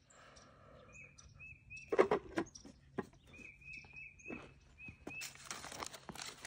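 Sharp plastic knocks and handling noise as a toy bottle rocket is pressed onto its plastic launch pad, while a bird chirps repeatedly with short calls at one pitch. Near the end, shoes scuff on concrete and a paper rustles.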